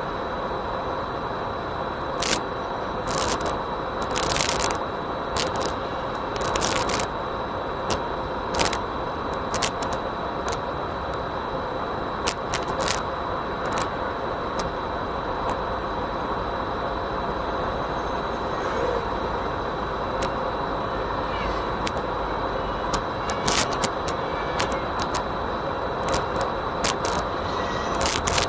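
Steady whirring hum with a thin high whine, picked up by the FPV goggles' built-in microphone. Frequent short clicks and crackles break through it.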